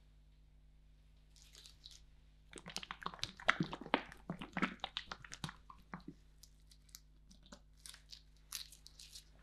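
Crunching and crackling of Milka Sensations cookie pieces being worked on an ice cream roll pan. There is a dense run of crunches for about three seconds, starting a couple of seconds in, then scattered single crunches.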